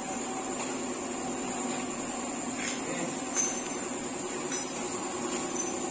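Occasional light clinks of small metal parts and hand tools being handled, over a steady background hum.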